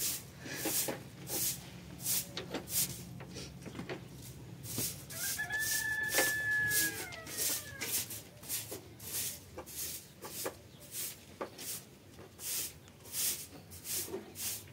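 A rooster crowing once, a long call of about two seconds near the middle, among many short sharp knocks and clicks.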